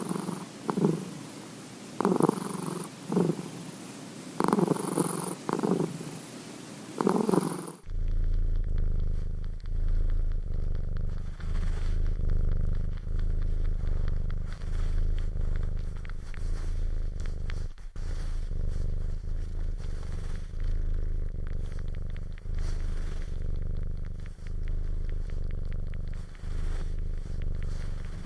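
Domestic cat purring close up, in rhythmic pulses about once a second. About eight seconds in it changes abruptly to a deeper, lower purr that swells and fades every second or two for the rest of the time.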